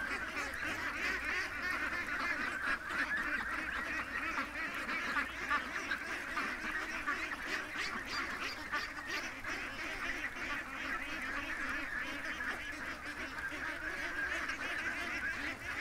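A flock of domestic ducks calling continuously, many overlapping calls at once in a steady chatter.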